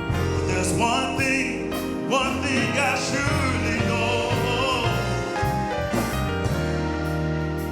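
Gospel song: a voice holding and bending long wavering notes, with no clear words, over sustained instrumental accompaniment.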